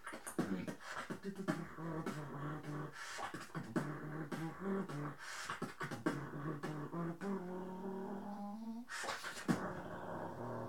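Drumstep beatboxing into a handheld microphone: sharp mouth kicks and snares with a hummed bass line between them. About seven seconds in comes a long held bass tone, followed by a short loud hissing burst.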